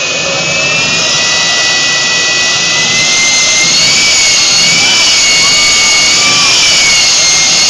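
F-4 Phantom jet engine running loud during start-up, a rushing roar with high steady whines on top. The whine steps up slightly in pitch and loudness about three seconds in.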